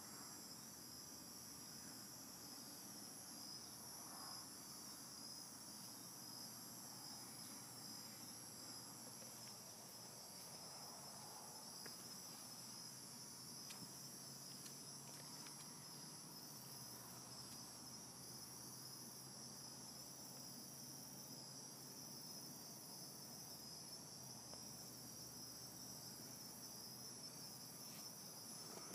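Faint, steady, high-pitched insect chorus.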